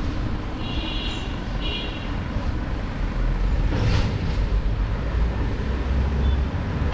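Street traffic heard from a moving bicycle, under a heavy low rumble of wind buffeting the microphone. A vehicle horn gives two short high beeps about a second in.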